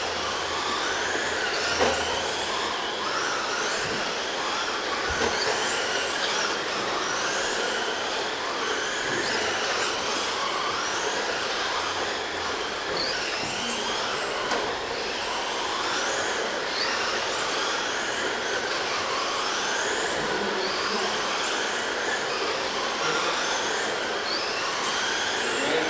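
Several 1/10-scale RC race trucks' motors whining together, the pitch rising and falling over and over as they speed down the straights and slow for the turns. There is a sharp knock about two seconds in.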